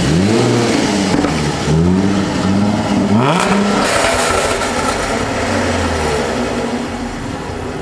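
Jaguar F-Type V6 S's supercharged 3.0-litre V6 being revved while standing still: a few quick blips of the throttle, each rising and falling in pitch, then a longer rev held for a couple of seconds that drops back toward idle near the end.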